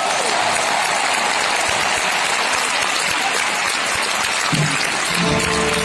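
Concert audience applauding at the end of a recited poem, a dense, steady clapping. About four and a half seconds in, the band begins to play sustained notes under the applause.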